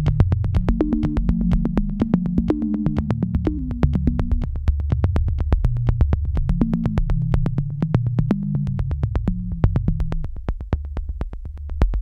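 Background electronic music: a synthesizer bass line over a fast, even drum-machine beat, with the bass thinning out briefly near the end.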